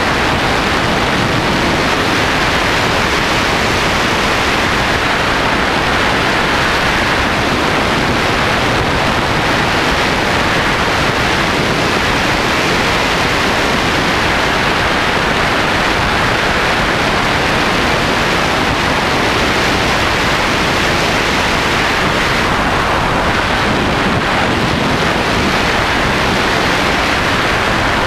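Loud, steady wind rush over the microphone of a camera carried on a fast-flying FPV wing, with no motor tone standing out above it.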